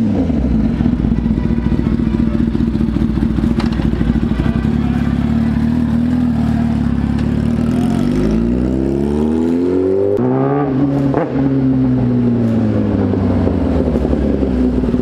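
Kawasaki Ninja ZX-10R's inline-four engine running at a steady low note. About eight seconds in it revs up, rising in pitch to a peak around eleven seconds, then falls away over the next few seconds.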